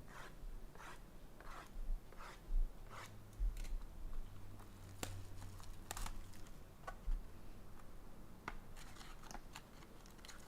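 Packaging of a sealed baseball-card box being cut and handled: a run of short cutting or rustling strokes every half-second or so, then scattered sharp clicks and crinkles as it is opened. A faint low hum runs through the middle.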